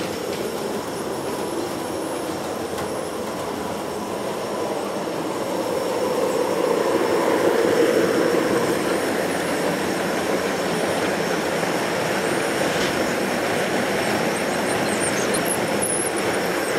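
0 gauge model train running on the track, its wheels rolling over the rails, growing louder as the coaches pass close about six to eight seconds in.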